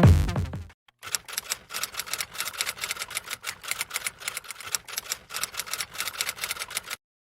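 Rapid, irregular typewriter-style typing clicks, an edited sound effect, which stop abruptly near the end. The tail of an electronic music track fades out in the first second.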